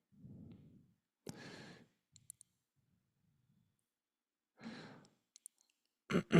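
A man breathing close to a microphone, with two audible exhales or sighs, one about a second in and one near the five-second mark, and faint low murmuring at the start.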